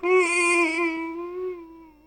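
A single long, pitched voice-like call, holding one slightly wavering note and fading out near the end.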